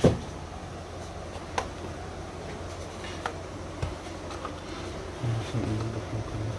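Four sharp single clicks, the first and loudest right at the start, then about one and a half seconds apart, over a steady low hum and fan-like noise.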